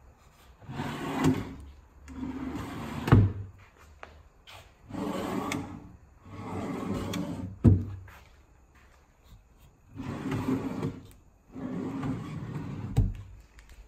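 Wooden drawers running open and shut on metal side slides, three times over: a rolling rumble as each drawer slides out, another as it is pushed back in, and a sharp knock as the drawer front closes.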